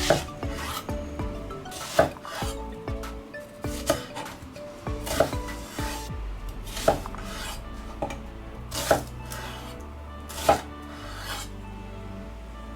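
Knife cutting vegetables on a cutting board, a sharp knock every second or two with scraping in between, over soft background music.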